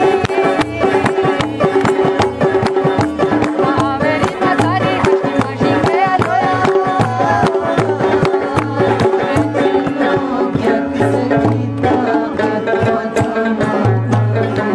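Khowar folk music played live: a long-necked plucked string instrument carries the melody over a steady drum beat and hand-clapping.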